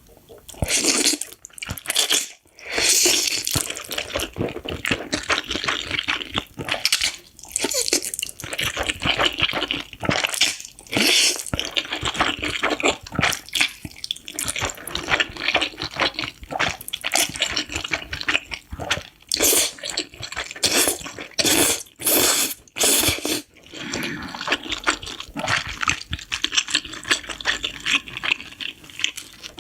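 Noodles being slurped and chewed close to the microphone: repeated slurps, some short and some about a second long, between bouts of chewing.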